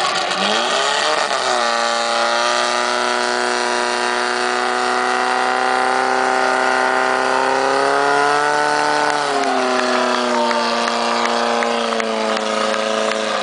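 Portable fire pump's engine revving up to full speed about half a second in and running at high, steady revs while it pumps water into the hose lines. Its pitch rises a little and drops back once, about nine seconds in.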